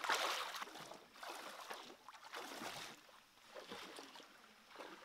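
Shallow water sloshing and splashing in short irregular bursts, loudest in the first second.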